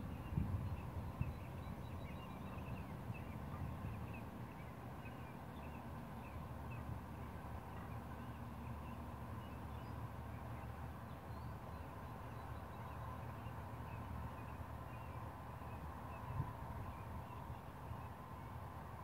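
Open-field ambience: a steady low wind rumble on the microphone with faint bird chirps scattered throughout, and a few soft knocks near the start and once more later.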